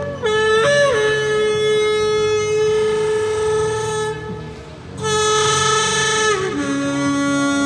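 Shofar blown in long, loud blasts. The first held note has a quick upward flick near the start. After a short break a little past the middle, a second blast starts, then slides down to a lower pitch and holds.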